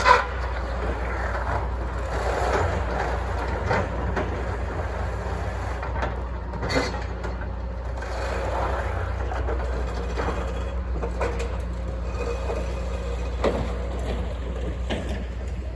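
Diesel engine of a stroke-boom delimber running steadily under load, with a few sharp metallic knocks from the working machine.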